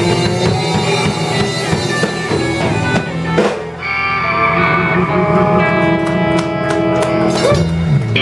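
Live blues band playing, with electric guitars and a drum kit. In the second half the band holds a long chord under cymbal hits, and a low note slides down near the end.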